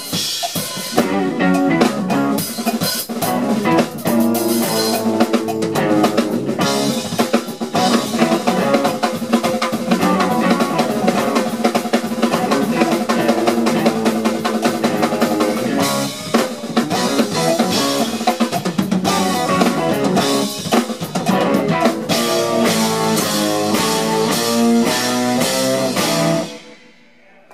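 A funk band playing live: a Sonor drum kit and electric guitar drive a busy groove with bass underneath. The music stops abruptly about a second before the end, as the song ends.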